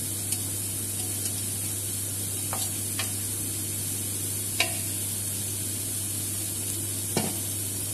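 Riced cauliflower sizzling in butter in a frying pan, over a steady low hum. A few light knocks come as the metal strainer and then a wooden spatula touch the pan.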